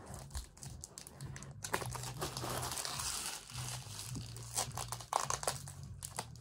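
Foil wrapper of a Pokémon card booster pack crinkling and tearing as it is pulled open by hand. Dense crinkling runs for a couple of seconds, then a few sharper crackles follow.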